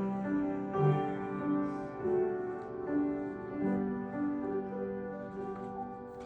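Piano playing the instrumental ending of a gospel song, held chords that gradually fade away.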